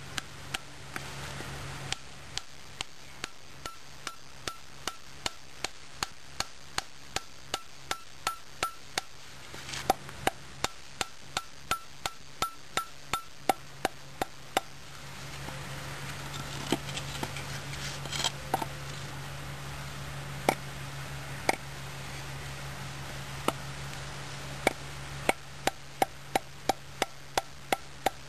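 ST3-F survival knife's pommel knocking a small wooden peg into a tree stump: a steady series of sharp wooden knocks, about one and a half a second, then louder, more irregular strikes with quick runs of blows in the second half.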